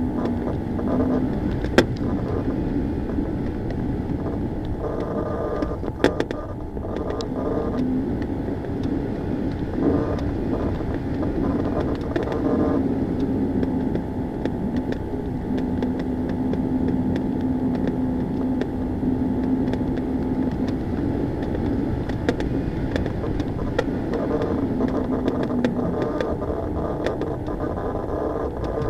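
Steady rushing of air in a Ka-8 glider's cockpit in flight in strong wind, with a low drone that fades in and out and a few sharp clicks.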